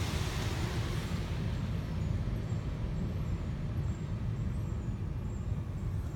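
Automatic car wash heard from inside the car: the hiss of water spraying on the car fades out about a second in, leaving a steady low rumble of the wash machinery.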